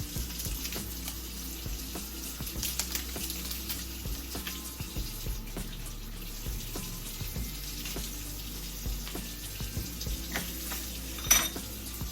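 Tap water running into a sink while plastic coffee-maker parts are rinsed, with light clinks and one sharper knock near the end.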